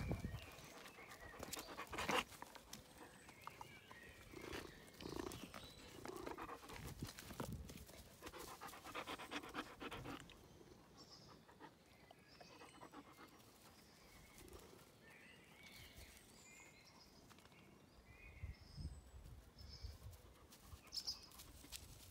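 German Shepherd puppy panting and snuffling at close range as it mouths and licks a cat's head, busiest through the first half and quieter after.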